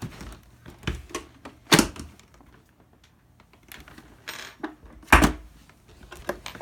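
Plastic vacuum cleaner parts knocking and clattering as they are handled: a handful of separate sharp knocks, the loudest near two seconds and five seconds in, with a brief rustle just past four seconds.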